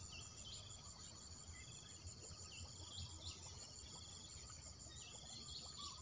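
Faint outdoor ambience of insects trilling steadily in a high, evenly pulsed buzz, with short bird chirps now and then.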